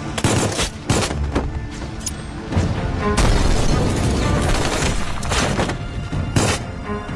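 Action-film soundtrack: music under sharp gunfire-like hits about a quarter second and a second in, then a loud, long explosion-like boom that rumbles for several seconds, and another sharp hit near the end.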